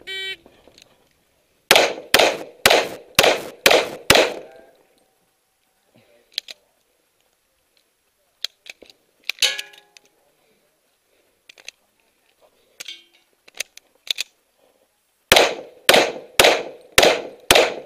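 A shot timer beep, then two rapid strings of pistol shots, about eight shots each, with a long stretch of faint clicks between them.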